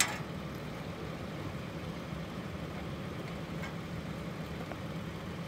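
Vehicle engine idling steadily, with one sharp knock right at the start.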